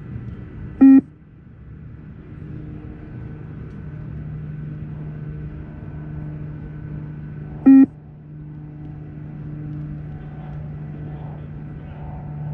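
Two short electronic beeps of the multistage fitness test (beep test), about seven seconds apart, each marking the end of a shuttle at level 5. A steady low hum runs underneath.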